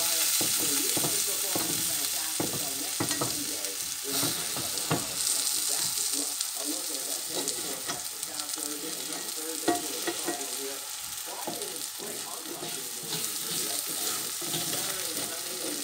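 Cabbage with eggs and bonito flakes sizzling steadily in a cast-iron skillet, with scattered taps and scrapes of a slotted spatula against the pan.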